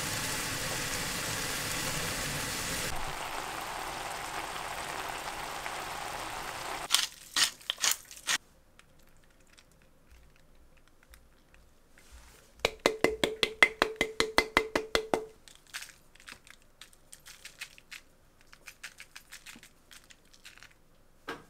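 Cream sauce and spaghetti sizzling steadily in a frying pan for the first several seconds. Then comes a quick run of sharp clicks, followed by scattered light taps as a salad is dressed and sprinkled with grated Parmesan.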